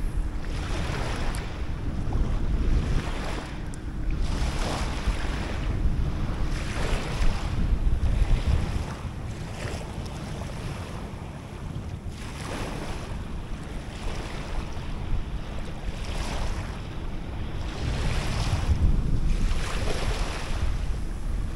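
Small waves washing onto a sandy shore, swelling and falling back every couple of seconds, with wind buffeting the microphone, strongest near the end.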